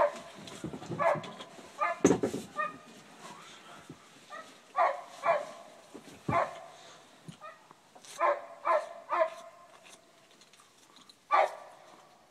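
A dog barking repeatedly: short barks, singly and in quick pairs or threes, with pauses of a second or more between. A dull knock about two seconds in.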